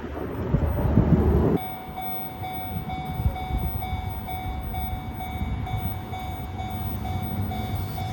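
A train rumbling past, cut off abruptly about one and a half seconds in. Then a railway level-crossing warning signal rings steadily, about two strokes a second.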